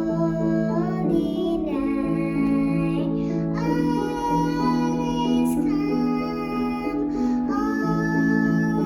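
Music: a slow melody of long held notes, changing about once a second, over a sustained low accompaniment, in a student's Christmas recital piece.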